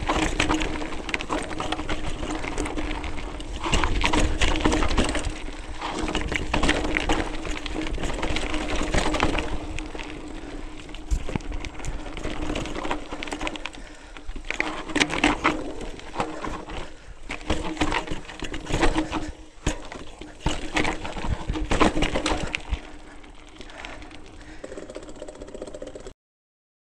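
Mountain bike descending a rocky dirt trail: tyres rolling and crunching over loose stones, the bike rattling and clattering over bumps, with the rear freehub buzzing steadily as it coasts.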